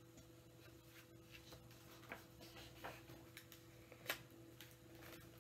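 Near silence: room tone with a faint steady hum and a few soft clicks, the sharpest about four seconds in.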